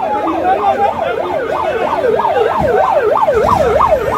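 Emergency vehicle siren in a fast yelp, its pitch rising and falling about three times a second.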